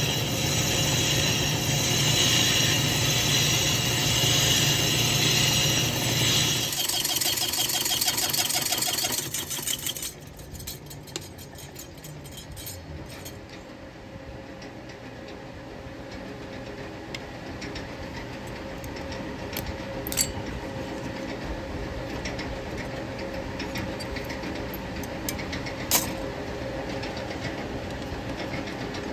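Metal lathe cutting a chainsaw cylinder-head blank, loud for about the first seven seconds as chips come off. The lathe then runs on and stops about ten seconds in, leaving a low steady hum with two sharp clicks later on.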